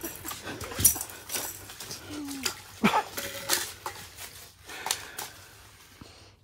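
Irregular knocks, taps and rustles of gear being handled, growing fainter toward the end.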